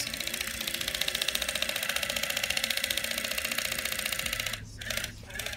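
Electric facial cleansing brush buzzing against the cheek with a fast, even pulse, then cutting out in short stutters about four and a half seconds in: its timer signal to move on to the next part of the face.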